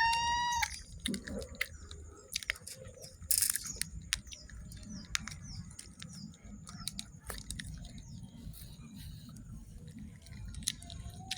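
Close-up eating sounds: chewing with scattered small clicks of mouth and food. A cat gives one short rising meow at the very start, and faint bird chirps are heard in the background.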